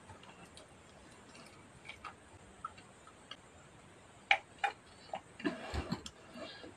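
Soft mouth clicks and chewing from eating by hand, then about four seconds in a couple of sharp clicks and swallowing sounds as juice is drunk from a glass.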